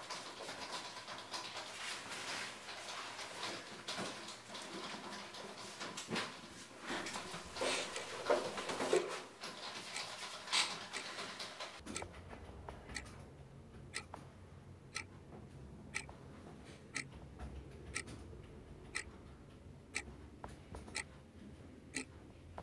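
Clock ticking about once a second over a low hum, starting about halfway through; before that, a denser stretch of clicks and rustling noise.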